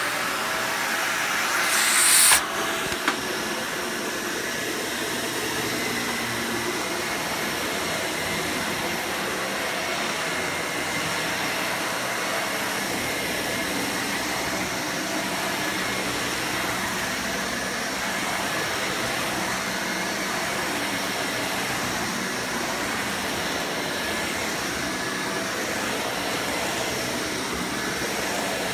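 Dyson Cinetic Big Ball Animal upright vacuum cleaner starting up, its motor spinning up over the first two seconds with a brief sharp hiss that cuts off, then running steadily as it is pushed over carpet.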